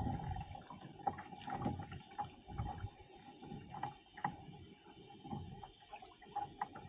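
Hobie Passport 12 kayak being manoeuvred on the water, with irregular light knocks and low thumps on the hull. A steady faint tone runs underneath.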